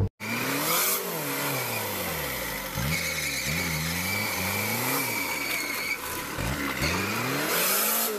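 Engine of a modified off-road 4x4 revving up and down again and again as it churns through mud, its pitch rising and falling about once a second. A faint high whine sits over it for a couple of seconds mid-way.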